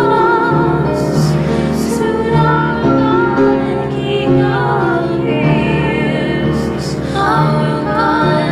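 Music: a slow song with a wavering, vibrato-laden singing voice over sustained accompaniment notes.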